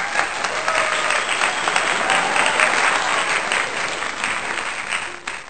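Applause: many hands clapping together in a dense, steady patter, with the clapping thinning out and fading near the end.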